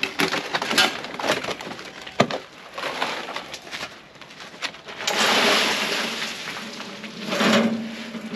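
A loaded metal wheelbarrow clattering and knocking as it is pushed over a gravel path, with footsteps on gravel. About five seconds in there is a rush of noise lasting a second or so, and a shorter one near the end.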